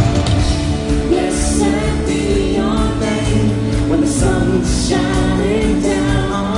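Background music: a song with a singing voice over accompanying instruments.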